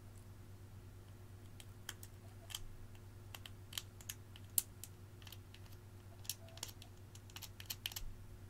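A metal spoon scraping and tapping inside a small plastic makeup pot as purple balm is dug out, making irregular sharp clicks and ticks, several a second, busiest in the second half.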